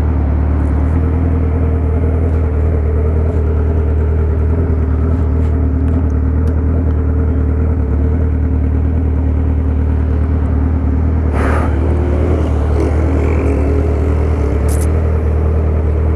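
Motorcycle engine idling steadily, with no revving. There is a brief noise about eleven seconds in.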